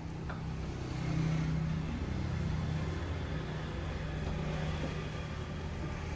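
A car engine running steadily with a low hum, swelling slightly for a couple of seconds about a second in.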